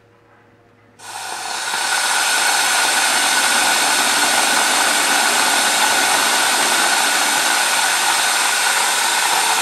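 Compressed air at about 100 PSI turned on about a second in, rushing through a 3D-printed Tesla turbine with CD discs and driving it. The loud steady hiss builds over about a second, then holds even.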